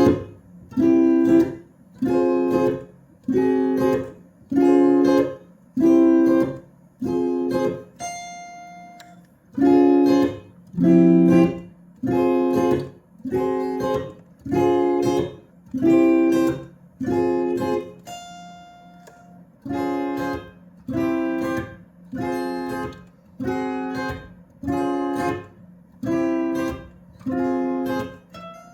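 Telecaster-style electric guitar with a LEGO brick body playing clean, steady chord strums about once a second. Twice the strumming stops and a single high note rings on instead.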